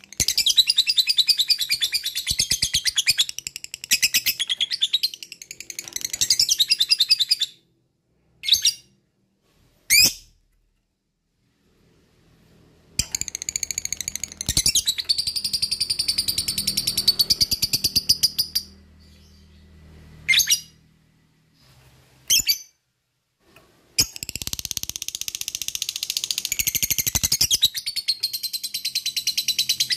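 Lovebird ngekek: long bouts of fast, high, rattling chatter, three of them, with a few short single calls and quiet gaps in between.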